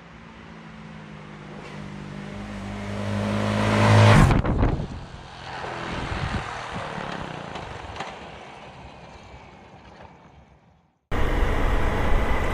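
A motor vehicle approaches and passes close by. Its engine note grows louder, peaks about four seconds in, drops in pitch as it passes, and fades away. About eleven seconds in the sound cuts abruptly to a loud, steady engine and wind noise.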